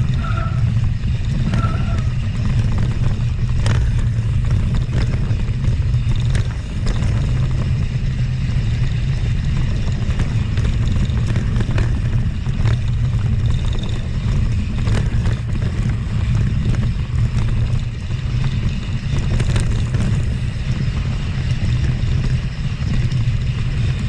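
Mountain bike being ridden along a rough trail, heard from a camera carried on the rider: a steady low rumble of wind and rolling on the microphone, with scattered knocks and rattles from the bike.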